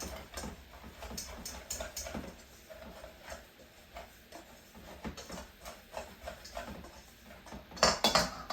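Wire whisk beating flour, salt and egg in a mixing bowl, clicking irregularly against the bowl, with a louder clatter near the end.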